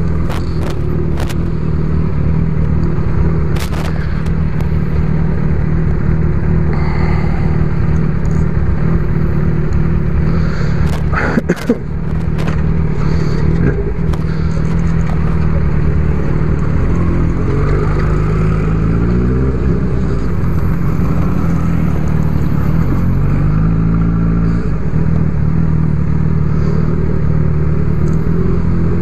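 Honda CB1000R's inline-four engine running at low speed in traffic, with a few sharp clicks about midway. Twice in the second half the engine note rises as the bike accelerates.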